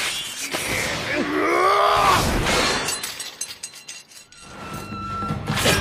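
Katana blades clashing with a sharp metallic hit, and one blade snapping. A man's strained cry follows about a second and a half in, then a thin, high, steady ring near the end.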